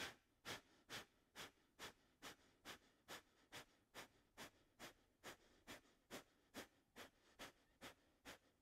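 A woman doing breath of fire: rapid, forceful exhales through the nose in a steady rhythm of about two puffs a second, about twenty in a row. The puffs are faint.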